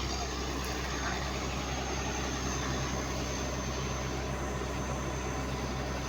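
Heavy engine of road-construction machinery running steadily at an even speed, a constant low hum with mechanical noise over it.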